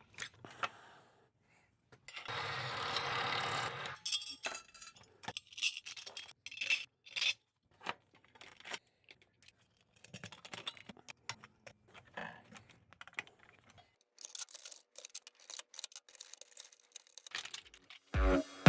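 Small metal tools and hardware clinking and rattling as they are handled and fitted to a metal pegboard bracket, with a stretch of scraping noise about two seconds in.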